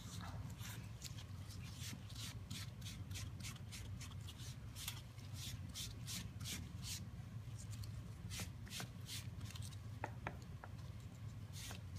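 A cloth rag rubbed quickly back and forth over a wax-coated oak board to wipe off the excess furniture wax. Each stroke gives a soft swish, about three a second, over a low steady hum, with a few sharper light ticks near the end.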